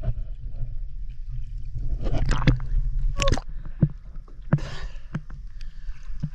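Water sloshing and gurgling around a waterproof camera held at the surface, with a steady low rumble and several sharp knocks and splashes scattered through.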